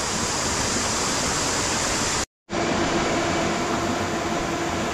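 Rushing water of a rocky stream. After a sudden cut about halfway, a small quadcopter drone hovers, its propellers giving a steady hum over the rush of water.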